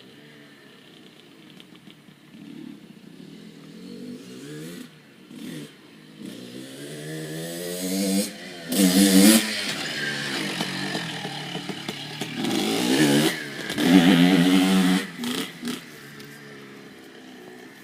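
Dirt bike engine revving up and down as it is ridden, growing louder, peaking twice about halfway through and again a few seconds later, then fading.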